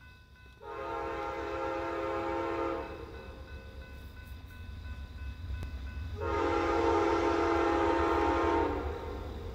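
Amtrak Crescent passenger train's locomotive horn sounding two long blasts, each a chord of several notes, about three seconds apart. It is blowing for the grade crossing over the low rumble of the approaching train.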